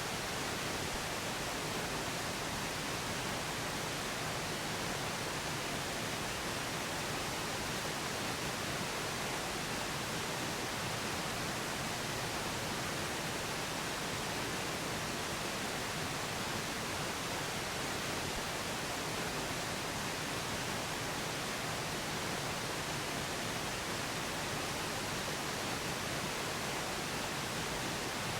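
Steady pink noise, an even hiss with no change in level; any layered subliminal affirmation voice is buried too deep under it to stand out.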